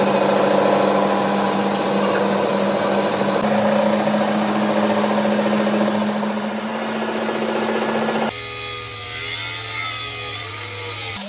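An electric power tool runs steadily on the steel of an excavator bucket during weld repair, a loud whine with dense hiss. About eight seconds in it cuts off abruptly to a quieter low hum, and the tool noise comes back right at the end.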